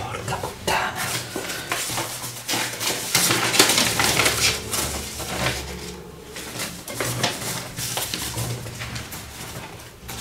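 Papers and notebooks being rummaged through on a cluttered desk: sheets rustling and pages flapping as stacks are leafed through and shifted, with small knocks of things being moved, in an irregular run of handling sounds.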